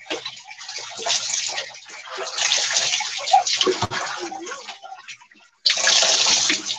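Water being poured and splashing during a bucket-and-dipper bath, in a few separate pours; the last and loudest starts suddenly near the end.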